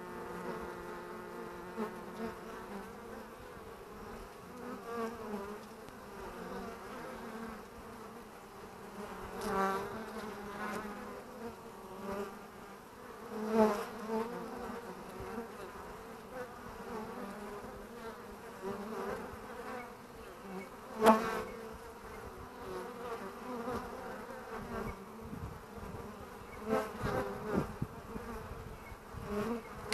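Honeybees buzzing at the hive entrance: a steady hum of wings, with louder buzzes several times as single bees fly close past.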